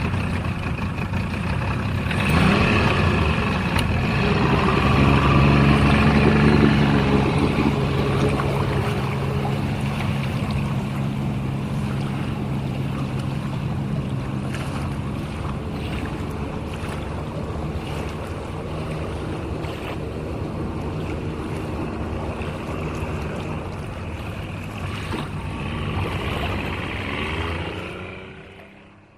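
Truck engine running: it picks up about two seconds in and climbs to a peak around six seconds, settles into a steady run, swells briefly near the end and then winds down and fades out.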